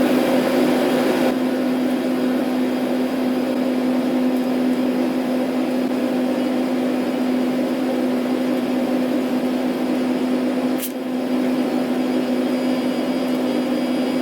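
Steady hum of a running motor or blower, a strong low drone under an even hiss, with a brief dip about eleven seconds in.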